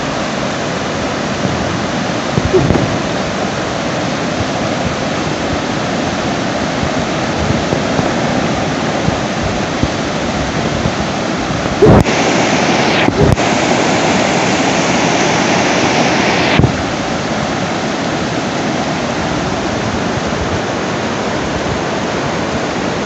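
Muddy floodwater of a swollen river rushing over rocks, a steady rush of water. It grows louder for a few seconds past the middle and then drops back abruptly, with a few brief thumps.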